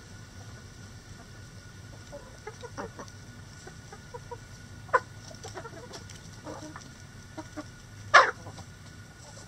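Backyard hens clucking in short, scattered calls as they forage, with one brief, much louder call near the end.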